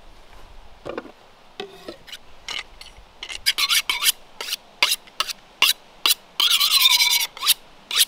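Kitchen knife being sharpened on a honing steel: the blade swiped along the rod in a run of quick metallic scraping strokes. The strokes are light at first, then louder and faster from about three seconds in, with one longer ringing stroke near the end.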